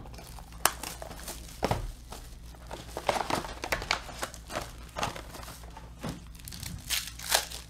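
A 2018 Panini Certified football-card box being opened by hand and its foil card pack handled and torn open: irregular crinkling and rustling of foil and cardboard with sharp crackles.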